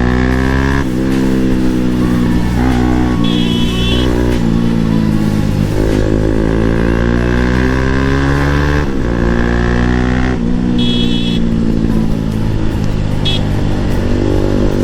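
Bajaj Pulsar NS200's single-cylinder engine pulling hard through the gears, its pitch climbing and then dropping back at each upshift, several times over.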